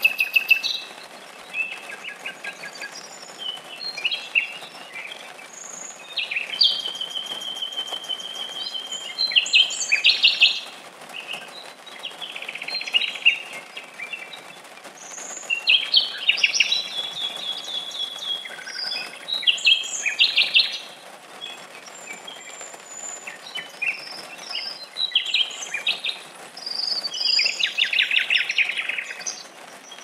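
Common nightingale singing a run of varied phrases: rapid trills and clicks, and long held whistles. Under it is the steady hiss of rain falling on foliage.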